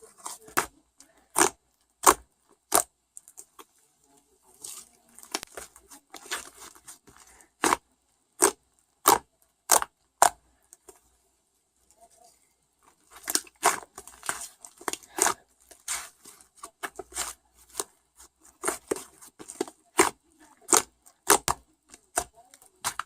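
A run of sharp, irregular clicks and snaps with rustling between them, pausing for a few seconds around the middle.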